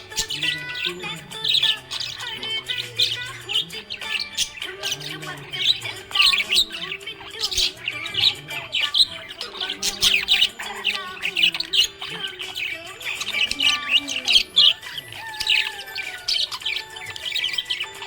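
Budgerigar chirping and warbling in a rapid, continuous stream of short high chirps and squawks, over faint background music.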